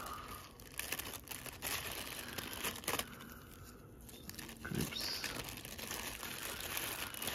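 Clear plastic bag crinkling and crackling as it is handled and opened, with irregular sharp crackles.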